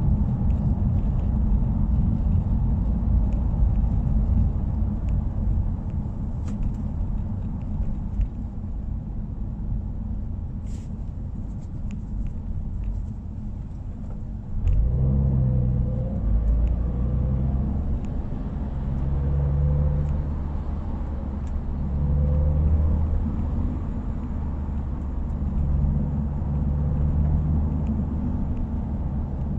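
Subaru WRX's flat-four engine and exhaust while driving: a steady low rumble of exhaust and road noise, then about halfway through the exhaust note gets louder, its pitch stepping up and down several times as the revs change.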